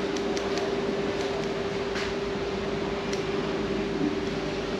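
Electric hair clippers running with a steady buzz, with a couple of light clicks about two and three seconds in.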